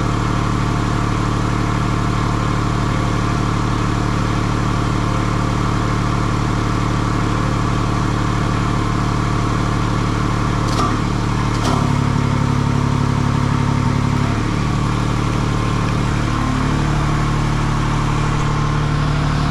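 Bobcat skid-steer loader's engine running steadily. Two short clicks come about eleven seconds in, and the engine note shifts for a couple of seconds after them and again from about sixteen seconds, as the stump grinder's hydraulic functions are switched on by jumping a wire across the remote's switch.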